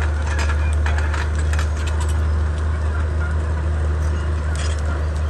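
Komatsu D31P bulldozer's diesel engine running under load with a steady low drone, with a run of sharp clicks and cracks in the first couple of seconds. Birds call faintly now and then over it.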